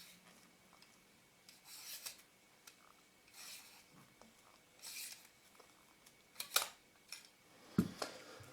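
Small handling noises from lens parts and repair tools on a workbench: five short, separate scrapes and clicks, the sharpest two near the end.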